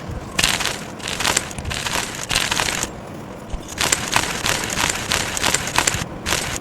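Chalk being crushed, crunching and crumbling in two long stretches about a second apart, with a short crunch near the end.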